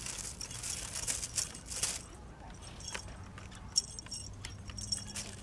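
Plastic bag and gift box rustling and crinkling under cats' paws. It is busy for about the first two seconds, then goes on as sparser light rustles and clicks.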